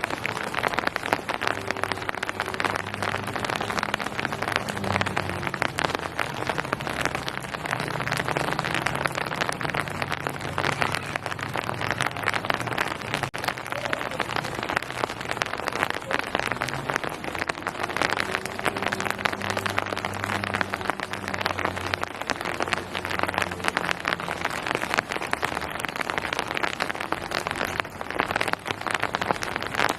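Steady rain falling, a dense patter of drops hitting surfaces.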